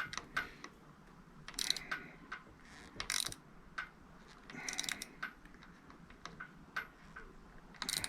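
Hand ratchet tool clicking in short bursts, about four strokes a second and a half apart with small clicks between, as a handlebar control-housing screw is tightened slowly so as not to strip it.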